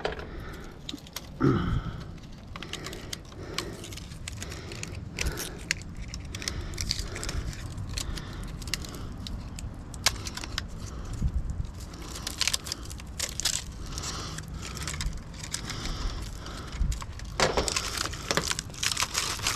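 Copper winding wire and its paper insulation being pulled by hand out of a scrap transformer's tightly packed winding layers: irregular small clicks, crackles and scraping of the wire strands, a little busier near the end.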